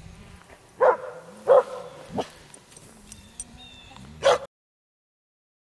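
Huskies barking in a sled-dog yard: several short, loud barks over fainter dog calls. The sound then cuts out abruptly about four and a half seconds in.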